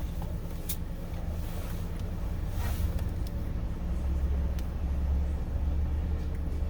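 Low, steady rumble of a car heard from inside the cabin, growing louder for a couple of seconds in the second half, with a few faint clicks.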